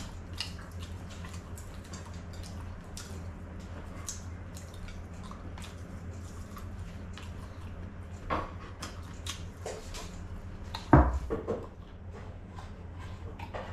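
Eating sounds: chewing and lip smacks, with fingers picking food off a plate, as scattered small clicks over a steady low hum. A single loud thump about eleven seconds in is the loudest sound.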